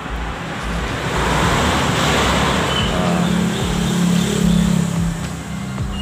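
Motor vehicle passing by: a rush of engine and road noise that swells, peaks in the middle with a steady engine hum, and fades again near the end.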